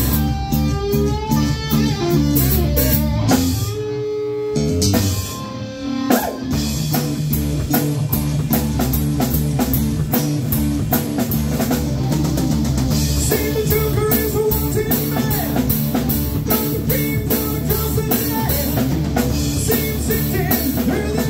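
Live rock trio playing an instrumental passage on electric guitar, bass guitar and drum kit with a driving beat. About four seconds in the drums stop briefly, leaving held guitar notes, and the full band comes back in about two seconds later.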